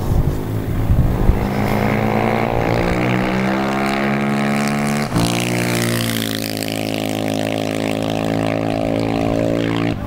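Motorcycle engine running out on the ice, its pitch rising as it revs and accelerates. After a short break about five seconds in it holds a steady, slightly lower pitch.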